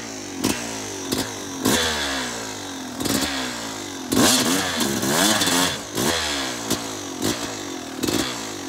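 Two-stroke Yamaha YZ250 dirt bike engine revving up and down in repeated throttle blips, the longest and loudest about halfway through, as the bike tries to climb a snowy bank with its rear wheel struggling for grip.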